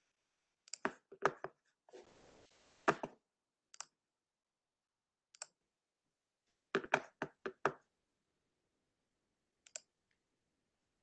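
Scattered clicks and taps of a computer mouse and keyboard as a presentation is closed. A short rustle comes about two seconds in, and a quick run of about six clicks comes past the middle.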